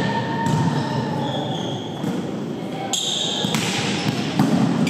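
Volleyball rally in a gymnasium: the ball is struck several times with sharp hits, the loudest near the end, while sneakers squeak briefly on the hardwood court, all echoing in the hall.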